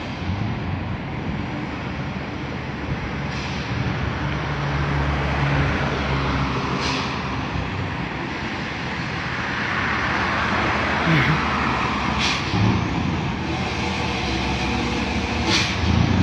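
Scania V8 diesel truck engine running loudly and steadily, its rumble swelling a little now and then.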